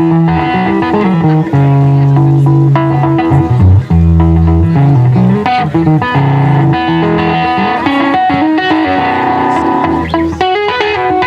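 Amplified banjo playing an instrumental break, quick plucked notes over held low bass notes.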